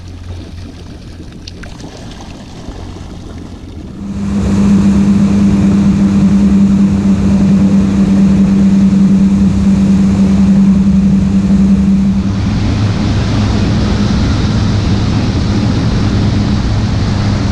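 Boat engine running low for a few seconds, then opening up about four seconds in to a loud, steady drone. Around twelve seconds in the engine note drops lower, and more rushing water and wind noise comes in.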